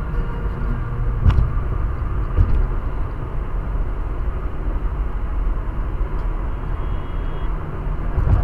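Steady low road and engine rumble inside a car cruising on a highway, with a short knock about a second in and a fainter one a second later.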